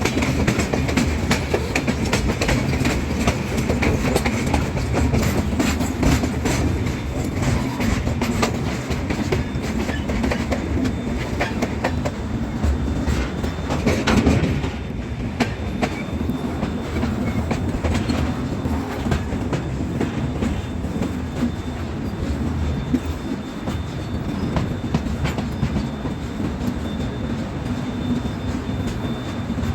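Passenger train running at speed on the track: steady wheel-and-rail rumble with a continuous clickety-clack of wheels over rail joints. There is a brief louder swell about 14 seconds in.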